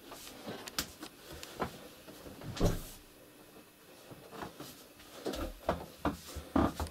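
Scattered light knocks and clicks of handling, the loudest about two and a half seconds in and a few more close together near the end.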